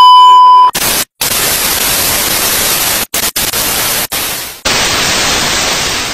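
Colour-bars test tone, a steady high beep for under a second, then TV static hiss. The hiss cuts out briefly a few times and fades down near the end.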